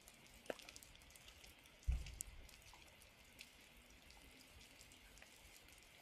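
Faint light rain: scattered raindrops and drips ticking over a soft hiss. There is a sharp click about half a second in, and a dull low thump about two seconds in.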